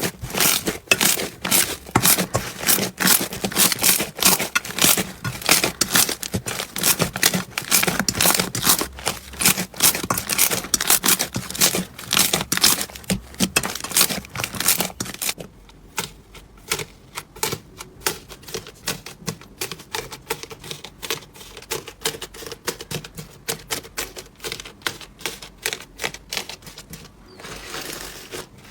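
Slime being squeezed and poked by hand, giving rapid, crackly clicks and pops. The clicking is dense for about the first half, then turns sparser and quieter.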